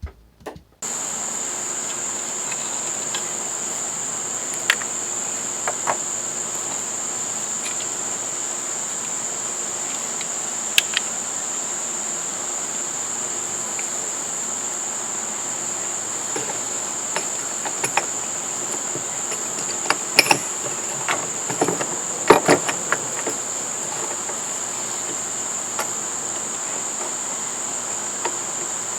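Steady high-pitched insect chorus, with scattered clicks and knocks from things being handled, most of them bunched together a little past two-thirds of the way in.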